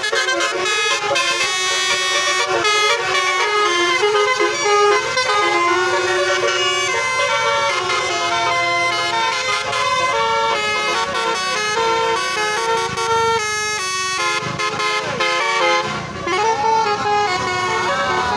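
Indonesian bus 'telolet' horns, multi-tone horns playing quick stepped melodies over and over, note after note, with a swooping rise-and-fall of pitch near the end.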